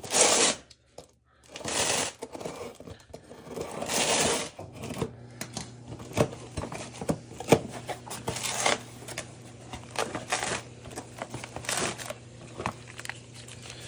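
A small cardboard box being opened by hand: three loud rasping bursts as the flaps and packing are pulled open, then rustling plastic bags and small clicks and knocks as the parts inside are handled. A low steady hum comes in about a third of the way through.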